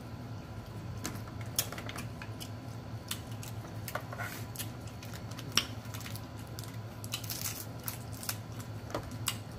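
Crab legs being cracked and pulled apart by hand: irregular sharp shell snaps and cracks, with a longer rustling tear about seven seconds in. A low steady hum runs underneath.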